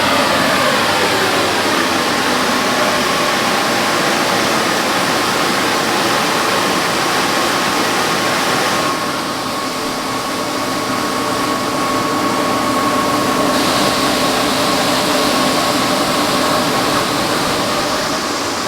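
Semi truck running, a steady engine drone and hiss with a faint held whine. The high hiss eases off for a few seconds in the middle, then comes back.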